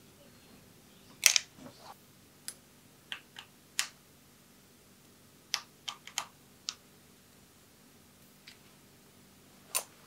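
A dozen or so sharp, irregular clicks and ticks of a small hand tool working on a mountain bike's hydraulic brake lever as it is adjusted at the handlebar. The loudest click comes a little over a second in, with a quick cluster of clicks around the middle.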